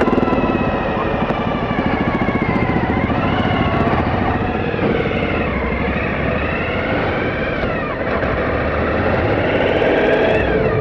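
Suzuki V-Strom 1000's V-twin engine running under a rider off-road, its revs rising and falling several times, over a steady rush of noise.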